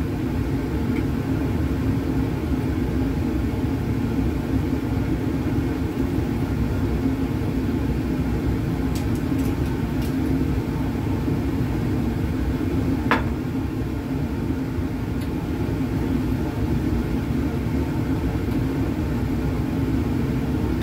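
Steady low rumble of a laboratory fume hood's ventilation running, with one brief higher-pitched sound about 13 seconds in.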